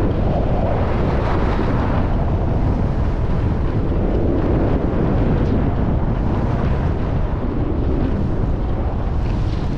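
Steady wind rushing over the microphone of a skier moving fast downhill.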